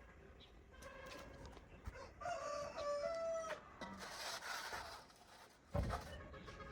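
A bird's call lasting a bit over a second, followed near the end by a single low thump.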